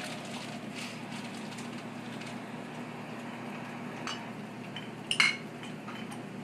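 Labrador dog licking and mouthing at a bottled-water cooler's tap and drip tray, with faint clicks and a sharp clink just after five seconds as its mouth knocks the fittings. A steady low hum runs underneath.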